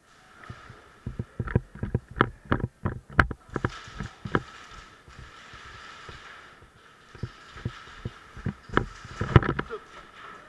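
A series of irregular dull thumps and knocks, about two or three a second, in two runs with a softer hissing stretch between them.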